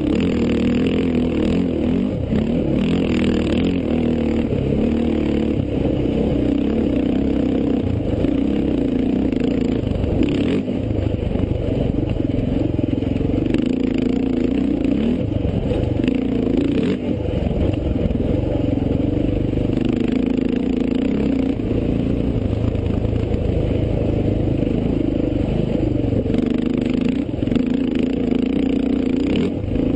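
Off-road race vehicle's engine running hard, heard onboard, its pitch rising and falling with the throttle. A few brief knocks and rattles from the vehicle over rough dirt.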